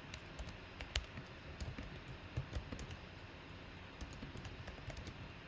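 Light, irregular clicks and taps of typing on a computer keyboard.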